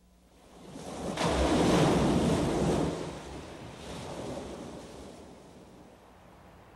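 A rushing noise swells up about a second in and dies away, with a smaller second swell around four seconds.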